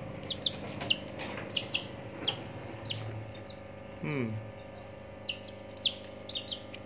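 Serama chicks peeping: a dozen or so short, high-pitched chirps, each dropping in pitch, coming at irregular intervals.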